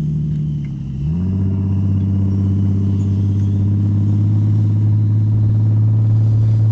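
Jeep engine running, dipping briefly about a second in, then picking up and holding steady and louder.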